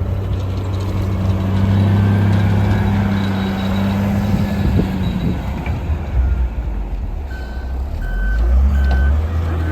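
Heavy vehicle engine running with a steady low hum that drops lower about halfway through, then a reversing alarm starts beeping at a regular pace near the end.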